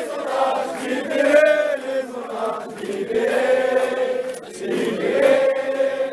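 A crowd of marching protesters, mostly men's voices, chanting a slogan loudly in unison in drawn-out phrases.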